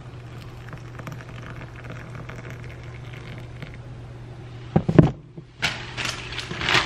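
Hot water being poured from a teapot into a teacup with a teabag in it, a steady splashing patter. About five seconds in there is a sharp knock, and near the end a clear plastic bag crinkles as it is handled.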